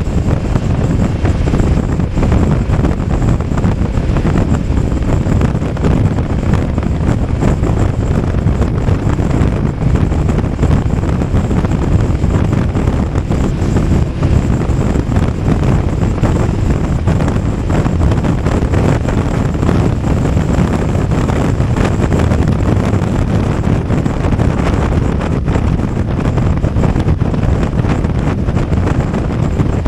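Steady wind rush over the microphone of a BMW F 850 GS motorcycle riding at road speed, with engine and road noise underneath.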